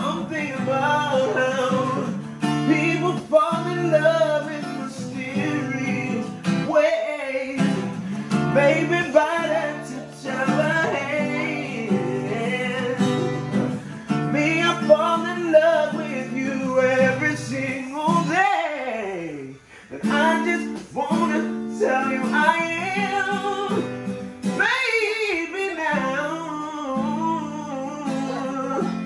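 Music: a man singing a love song over strummed acoustic guitar, with one long sliding vocal run that falls in pitch about two-thirds of the way through.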